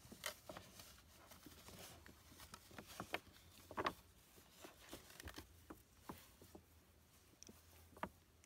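Faint, irregular rustling and small clicks of a paper gift bag as a cat noses around inside it.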